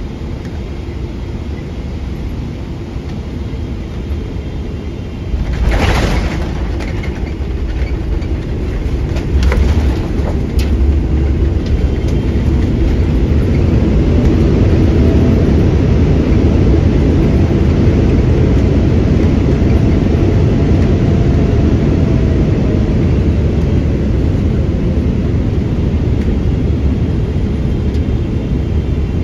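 Boeing 777-200LR landing, heard from inside the cabin: a steady rumble of GE90 engines and airflow, then a jolt of touchdown about six seconds in and a couple of further clunks a few seconds later. From about twelve seconds the rumble grows louder and holds as reverse thrust spools up during the rollout.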